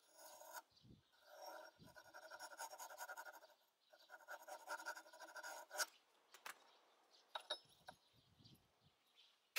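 Faint scraping of a steel caliper jaw being drawn along a flat steel bar to scribe a marking line, in two strokes of about two seconds each, followed by a few light clicks and taps as the tool and bar are handled.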